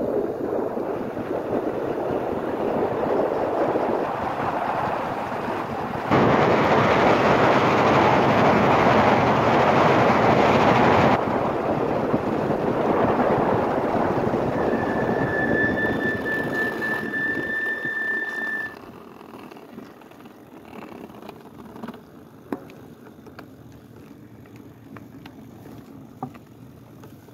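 Wind rushing over the microphone of an e-bike ridden at speed, loudest for about five seconds early on. A steady high squeal joins it for about four seconds. Both cut off together about two-thirds of the way through, leaving a low street background with a few faint clicks.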